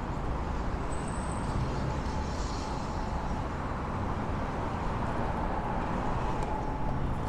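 Steady city street noise of road traffic passing along a busy avenue, with a brief faint high whine about a second in.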